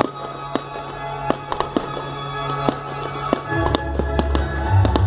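Fireworks going off: many sharp bangs and crackles at irregular intervals, heard over music with held notes and a deep bass that comes in about three and a half seconds in.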